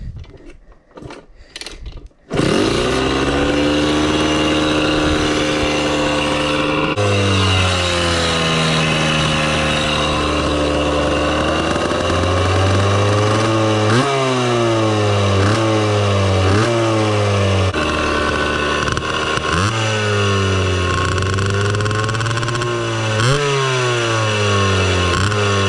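1982 Kawasaki KDX80's two-stroke single-cylinder engine starting about two seconds in, then running steadily with several short throttle blips that briefly raise the pitch.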